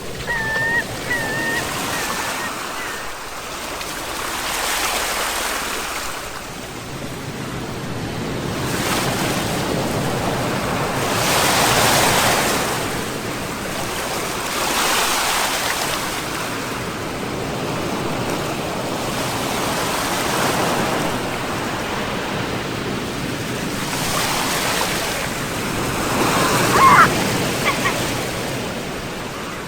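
Sea waves breaking and washing up the shore, the surf swelling and ebbing every few seconds. A few short high chirps sound in the first seconds, and a brief high call near the end is the loudest moment.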